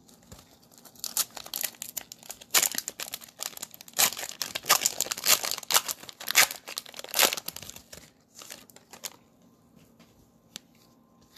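Cellophane wrapper of a trading-card cello pack being torn open and crinkled: dense crackling for several seconds that dies away about nine seconds in.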